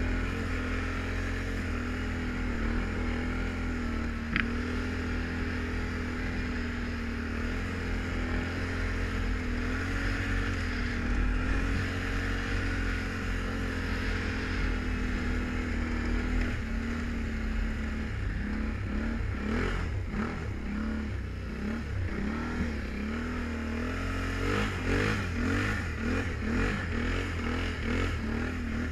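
Can-Am Renegade 1000 ATV's V-twin engine under way, holding a steady speed for the first half. In the second half its pitch rises and falls several times as the throttle is opened and eased off.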